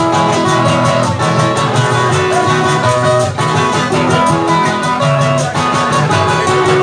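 Acoustic guitars playing a merengue, plucked melody notes over strummed chords, with a steady quick beat in the high range.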